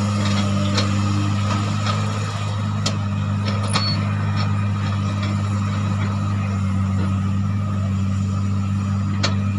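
Komatsu PC300 hydraulic excavator's diesel engine running with a steady, unbroken drone while the machine swings and works, with a few sharp knocks and clanks now and then.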